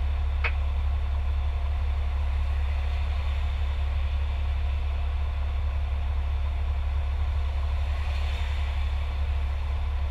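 Fire truck engine idling, a steady low rumble heard inside the cab, with one short click about half a second in.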